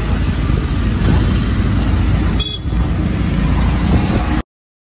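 Riding in a vehicle through wet traffic: a loud, steady rumble of engine and road noise, with a brief high tone about halfway through. It cuts off suddenly near the end.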